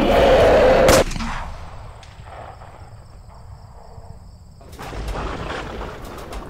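Loud rushing burst ending in a single sharp gunshot crack about a second in, cut off abruptly and followed by much quieter sound.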